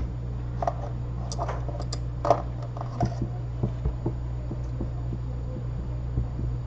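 Light, scattered clicks and taps of small phone parts and tools being handled on a repair bench, over a steady low electrical hum.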